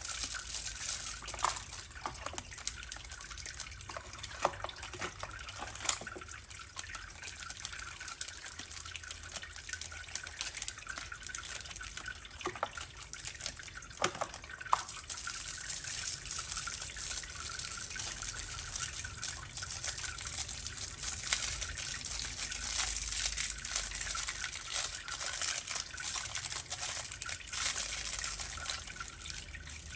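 Water trickling and splashing steadily, with scattered small drips and clicks.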